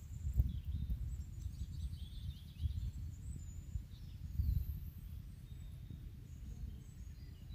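Outdoor wind rumbling on the microphone in uneven gusts, with faint bird chirps scattered over it.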